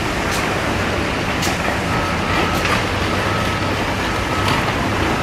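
Large construction site ambience: heavy machinery running with a steady low hum, scattered metallic knocks and clanks, and a faint high whine for a couple of seconds past the middle.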